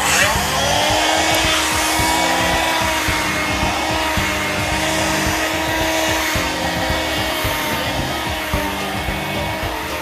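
Handheld wet/dry vacuum cleaner motor switching on and running steadily, its whine rising as it spins up in the first second, mixed with background music.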